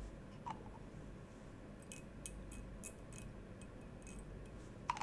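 Faint, scattered small clicks and ticks from handling a small bottle of fly-tying varnish and its needle-applicator cap at the vise, most of them bunched a couple of seconds in.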